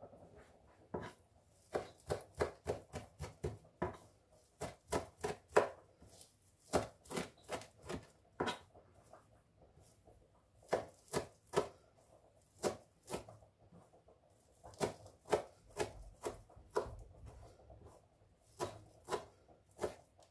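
Kitchen knife finely chopping fresh parsley on a plastic cutting board: runs of quick, sharp taps, two or three a second, with short pauses between runs.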